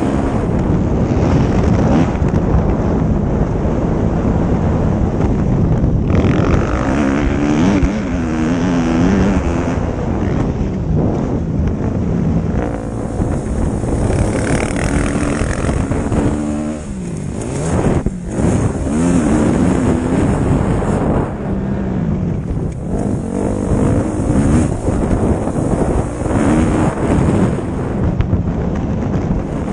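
Motocross bike engine under race throttle, revving up and falling back again and again as the rider accelerates and shuts off, heard from a helmet camera with heavy wind rushing over the microphone.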